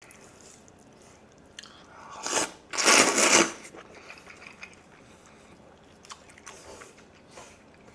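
A mouthful of jjajangmyeon noodles slurped in two loud bursts about two and three seconds in, then quieter chewing with small wet clicks.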